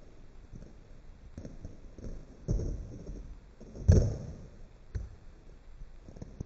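Running footsteps on a sports-hall floor and a speed vault over a wooden vaulting box: a knock about two and a half seconds in, then the loudest thud about four seconds in as the feet land on the gym mats, followed by a few more footsteps.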